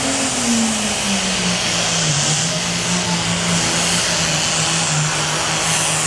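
Super Farm class pulling tractor's diesel engine running flat out with a loud hiss over it. Its pitch sags over the first two seconds and then holds steady.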